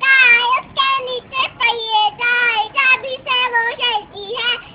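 A young girl singing a children's poem in short, held sung phrases.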